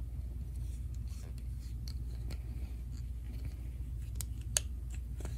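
Mini Etch A Sketch knobs being turned as it draws, giving faint scratching and small clicks over a low steady hum, with one sharper click about four and a half seconds in.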